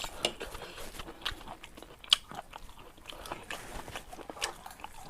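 Close mouth sounds of someone eating spicy ramen noodles: chewing with irregular clicks and smacks, one sharper click about two seconds in.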